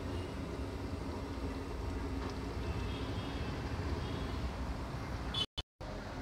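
Steady low rumble of the gas burner under a steel kadhai of chicken curry cooking. The sound cuts out briefly twice near the end.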